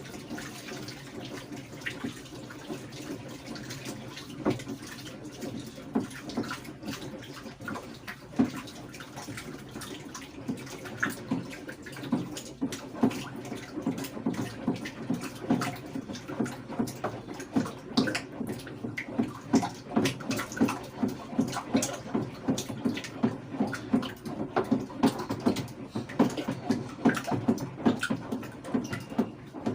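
Thick conditioner mixture stirred by hand in a container: a steady slosh with frequent knocks of the stirrer against the side. The strokes come faster and louder in the second half.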